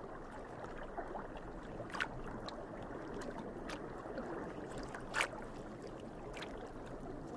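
Underwater water ambience: a steady watery hiss broken by a few sharp clicks, the loudest about two and five seconds in.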